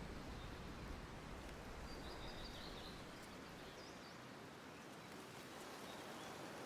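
Faint steady background hiss with a few faint bird chirps about two seconds in.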